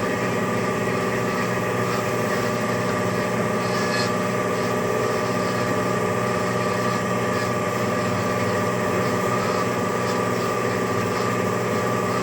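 Lian Feng LF-12A automatic band saw running, its 2 hp three-phase motor giving a steady machine hum made of several held tones.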